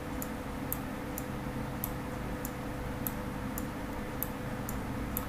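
Light, sharp ticks about twice a second, slightly uneven, over a steady low hum of room or recording noise.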